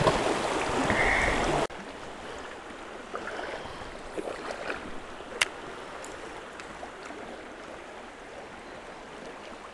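Shallow creek water running over rocks, loud at first and then dropping suddenly to a quieter flow about one and a half seconds in. A few faint ticks and small splashes sound over the water, the sharpest about five seconds in.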